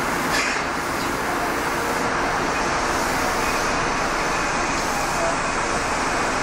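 Steady interior running noise of a subway train: an even rumble and hiss of wheels, track and car, with no announcement.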